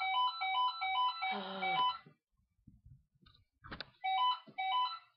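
Telephone ringing with a repeating electronic ringtone, a quick pattern of alternating beeping notes at about three a second. It breaks off about two seconds in and rings again near the end. A single knock sounds just before it resumes.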